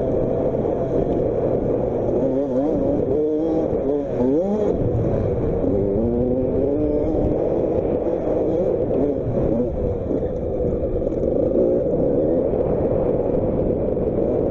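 Motocross bike engine running under throttle as it is ridden, its pitch rising and falling with throttle and gear changes, most clearly between about two and seven seconds in.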